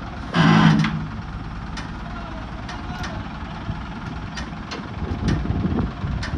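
An engine idling steadily with a low knock, with scattered sharp metallic clicks and a brief loud pitched burst about half a second in.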